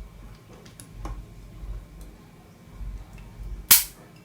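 Hand crimping tool squeezed onto an RJ45 plug on a UTP cable: a faint click about a second in, then one sharp, loud snap near the end as the crimper closes and presses the plug's contacts into the wires.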